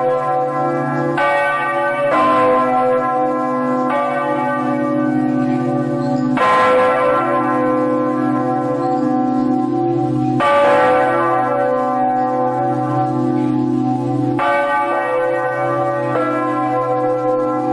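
Large bells ringing, struck about seven times at uneven intervals of one to four seconds. Each strike rings on and overlaps the next over a steady deep hum, and the mix of tones changes from strike to strike.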